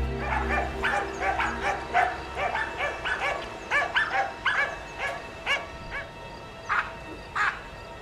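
Small dog yapping rapidly, about four short yaps a second, then slowing to a couple of single yaps near the end.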